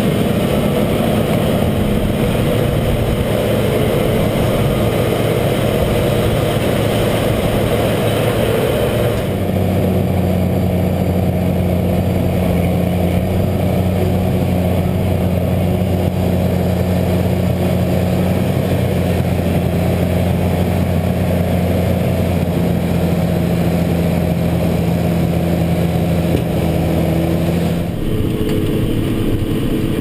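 Case IH 305 Magnum tractor's diesel engine running steadily under way, heard from the grain cart it is pulling. The sound changes abruptly about a third of the way in, settling into a steadier low hum, and changes again near the end.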